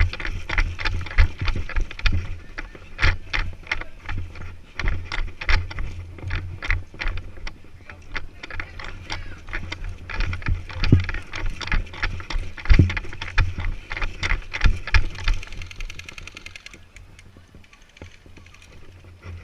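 Footsteps and gear rattling as a player moves across the field, a quick run of knocks and clatter two to three times a second, stopping about three quarters of the way through.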